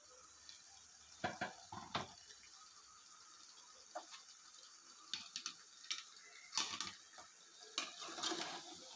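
A steel ladle knocking and scraping against an aluminium pot as chunks of raw chicken and potato are stirred, in a scattering of sharp clinks that come thicker near the end, with two louder knocks in the first two seconds.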